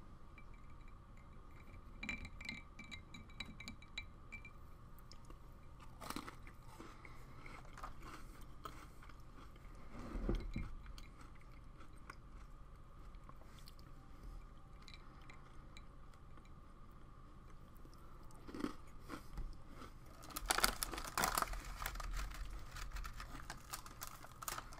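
A person chewing Oreo cookies dunked in water: faint, scattered crunches and small clicks, busiest a few seconds before the end.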